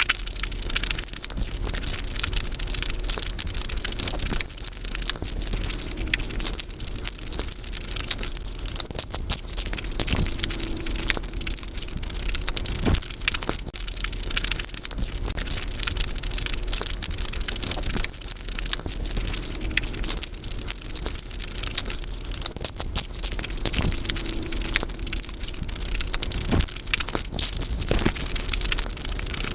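Close-miked eating sounds of Indian sweets sped up fivefold: a dense, continuous stream of rapid chewing, smacking and mouth clicks.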